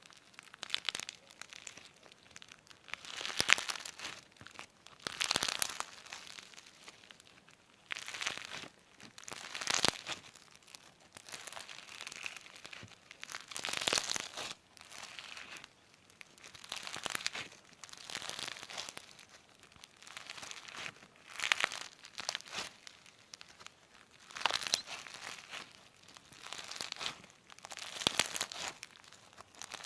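Slime being squeezed and pressed by hand, giving short crackly, popping bursts about every one to two seconds.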